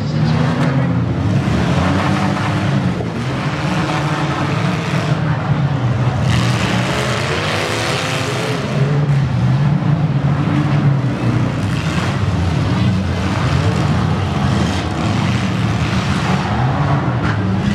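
Several demolition derby cars' engines running hard and revving together, their pitch rising and falling as they drive and push into each other in the dirt arena.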